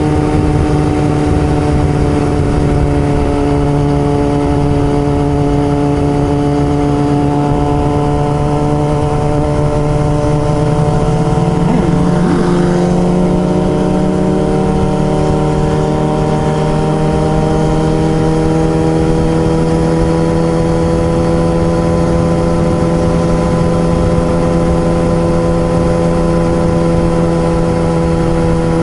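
Kawasaki ZX-6R's inline-four engine running at a fairly steady pitch over a low rumble. The pitch wavers briefly about twelve seconds in, then creeps slowly upward.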